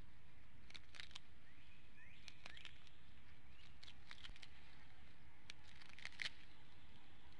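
Scattered short bird chirps and clicks over a steady low hum, with a few quick rising chirps about two seconds in and a brighter cluster of chirps near the end.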